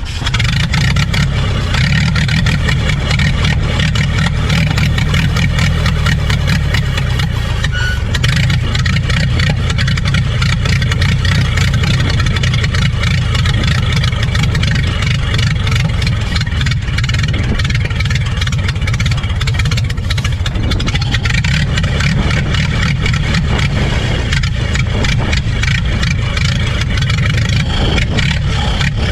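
An engine running steadily at an even speed, with a dense, rapid firing beat.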